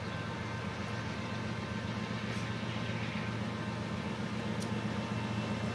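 Diesel freight locomotives approaching from a distance: a low, steady engine drone that grows slowly louder.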